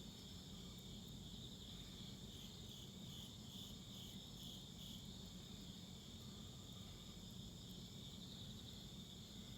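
Crickets chirping in a steady high chorus, with a few faint crackles from a wood fire.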